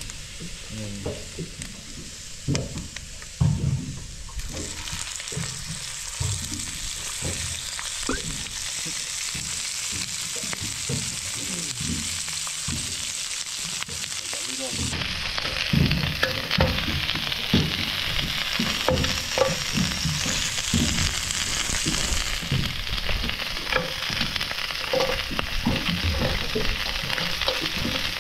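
Crayfish (rock lobster) tail halves frying in an electric frying pan, a steady sizzle that comes up about four seconds in and grows louder about halfway through, with irregular low thuds underneath.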